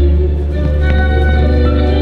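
Instrumental music of sustained notes played over a sound system, with a steady deep bass hum beneath.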